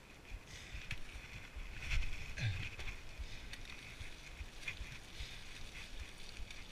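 Mountain bike tyres rolling over a path of dry fallen leaves, a steady rustling crackle with scattered clicks and low knocks from the bike over bumps, loudest about two to three seconds in.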